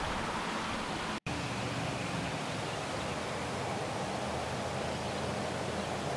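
Steady outdoor hiss of open-air ambience, with a split-second gap of silence about a second in.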